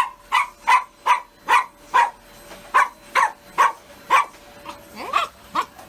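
Toy poodle barking in a rapid string of short, sharp barks, two to three a second, with a short whine near the end.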